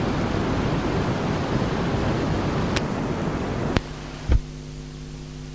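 Steady hiss of recording background noise. About four seconds in there is a sharp click, then a low thump, as of the recorder or microphone being handled. After the click the hiss drops away and a faint steady electrical hum remains.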